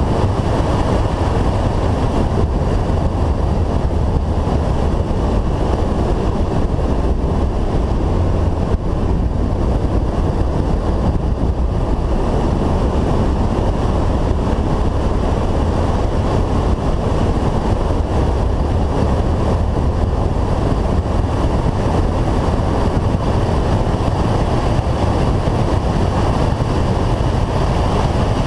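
Steady rush of wind over a roof-mounted action camera on a Renault Clio 182 at track speed, with the car's engine and tyre noise low underneath.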